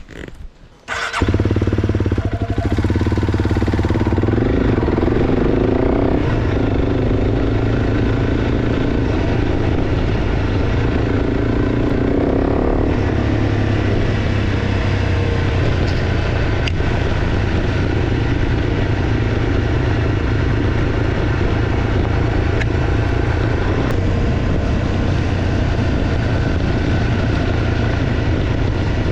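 Honda CRF300 Rally's single-cylinder engine, fitted with an aftermarket exhaust, running steadily as the bike rides along. It comes in suddenly about a second in and then holds steady.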